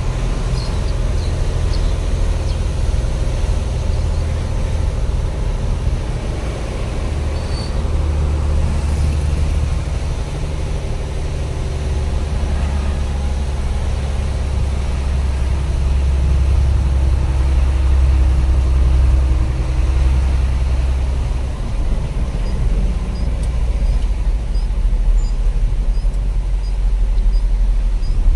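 A truck's engine and road noise heard from inside the cab while driving: a steady low drone whose pitch shifts a little as the revs change.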